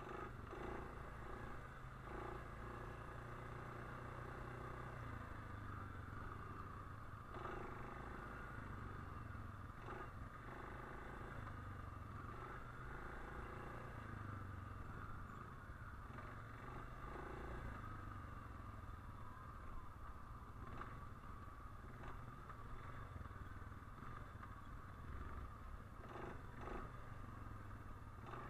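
ATV engine running steadily, a low even rumble with a few short knocks scattered through.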